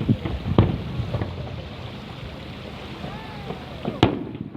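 Fireworks going off: a few dull bangs in the first second or so, then a sharper, louder crack about four seconds in, over a steady noisy background.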